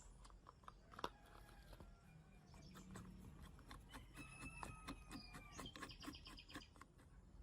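Faint scattered clicks and light taps, with birds chirping in the background in short runs of quick high notes.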